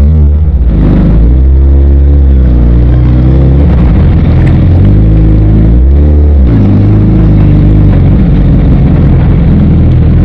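Suzuki Hayabusa's inline-four engine running hard under way, its revs climbing and easing in long sweeps, with a sharp drop and recovery about six seconds in, as at a gear change.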